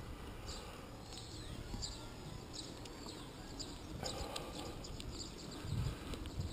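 Small birds chirping repeatedly, over a low rumble of wind and road noise from the moving bicycle.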